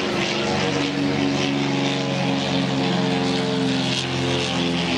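A steady engine drone: several held tones that shift slightly in pitch now and then, over an even hiss.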